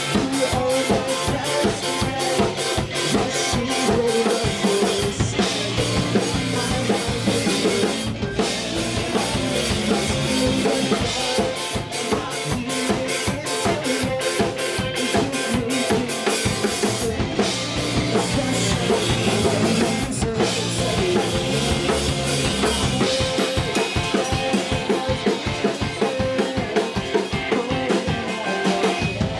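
Rock band playing live: a drum kit driving a fast steady beat with kick and snare under electric guitar and bass guitar, with no break.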